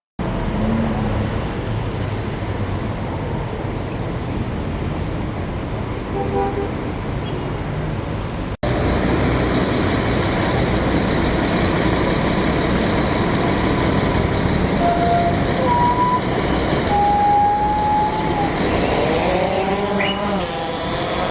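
Steady road traffic noise, with a few short horn-like toots in the second half.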